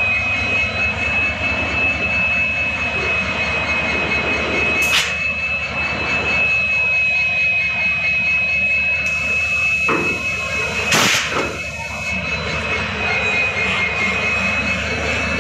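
WDG-4 diesel-electric locomotive's EMD 16-cylinder two-stroke engine running, heard up close, with a steady high-pitched whine over the engine noise. Two short sharp clicks come about five and eleven seconds in.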